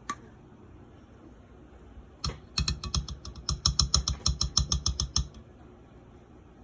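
A quick, even run of sharp clicking taps, about seven a second for nearly three seconds, each with a low knock beneath it, preceded by a single click about two seconds in.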